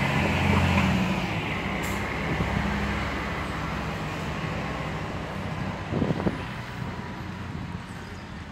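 Diesel engine of a parked coach running at idle, a steady low hum that is loudest at first and slowly fades. A couple of short knocks come about six seconds in.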